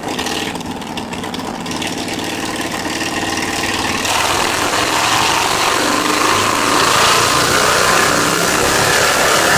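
1998 Harley-Davidson Fat Boy's Evolution V-twin running on a chassis dyno in a sixth-gear pull, getting louder as the revs build over the first few seconds and then holding loud under load.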